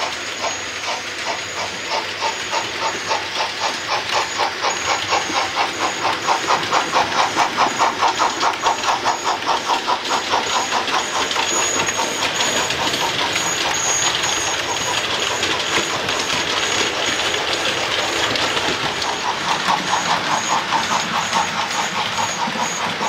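Model steam locomotive's sound unit chuffing rhythmically with a steam hiss as it hauls its coaches away, the beats loudest a few seconds in, over a faint steady high whine.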